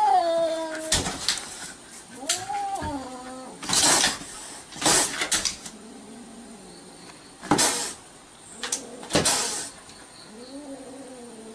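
A cat yowling in three drawn-out, wavering calls, the first sliding down in pitch, with four loud hisses in between and a few light taps.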